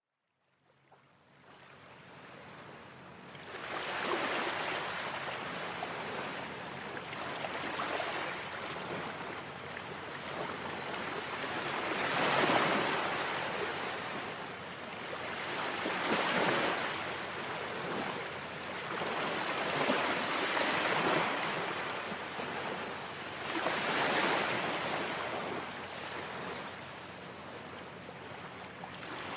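Sea waves breaking on an open beach: surf rushing in swells that rise and fall about every four seconds, fading in over the first few seconds.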